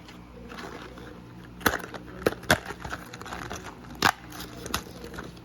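A handful of sharp clicks and knocks from objects being handled, five or so spread through the middle, over a steady low hum.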